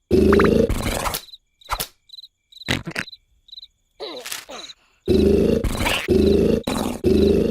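Cartoon snoring sound effect: loud, rumbling snores in quick succession. They break off after about a second, give way to a quiet stretch of cricket chirps and a few clicks, and start up again about five seconds in.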